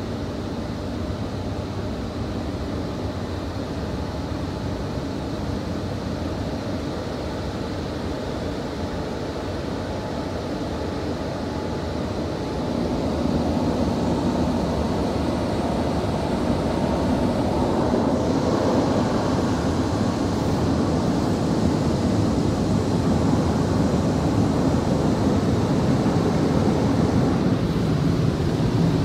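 Automatic car wash heard from inside the car's cabin: a steady rush of machinery and water. It grows louder about twelve seconds in, as the spinning red brushes reach the car's sides.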